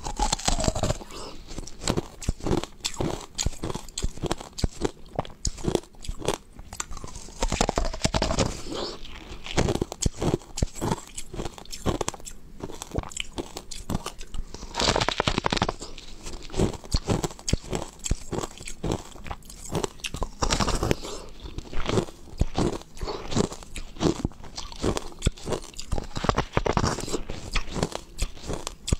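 Close-miked biting and chewing of a clear block of ice: a continuous run of crisp cracks and crunches, with louder bursts of crunching about halfway through and again a few seconds later.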